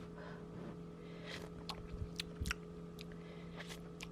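A person tasting a spoonful of warm cheese sauce: soft mouth clicks and smacks of chewing and tasting, scattered through, over a steady low hum.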